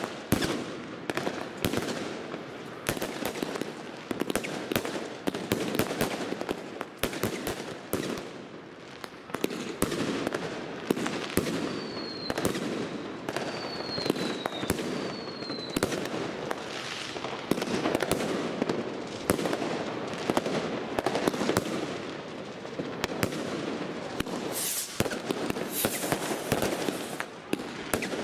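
Fireworks batteries firing: a dense, continuous run of sharp cracks and bangs from shots bursting overhead. About halfway through come three short falling whistles.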